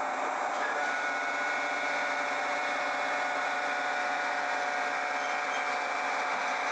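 Steady whining drone of heavy machinery: a few high tones held level over an even noise, with no starts or stops.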